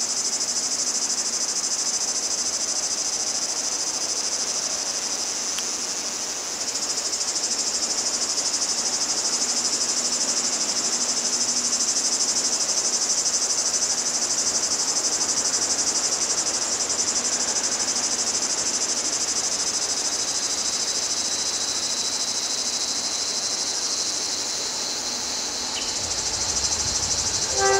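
Steady, high-pitched shrilling of an insect chorus. A low rumble swells in the last couple of seconds.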